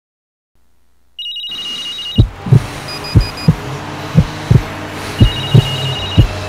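Heartbeat sound effect, deep thumps in lub-dub pairs about once a second, over a steady hiss, with bursts of high, rapid electronic beeping. It starts after about a second of silence.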